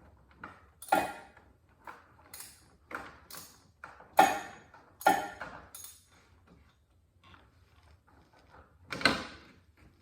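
Irregular metal clanks and knocks of a wrench being worked on a motorcycle's oil filter to loosen it, with four louder knocks among fainter ticks.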